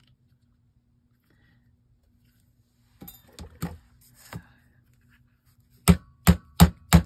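Four sharp knocks in quick succession, about three a second, starting near the end: the thick journal being struck to flatten it down. Before them come a few light handling rustles and clicks.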